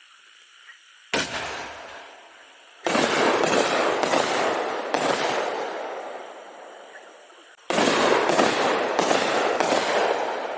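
Aerial firework shells bursting overhead. First comes a single sharp bang about a second in, then two volleys of four quick reports each, the pattern of quad-break canister shells. Each report trails off in a long fading echo.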